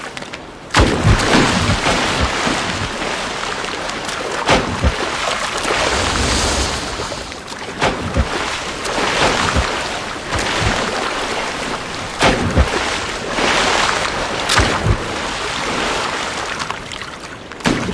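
Mobula rays leaping and slapping back onto the sea surface: many sharp splashes at irregular intervals over a steady rush of sea water.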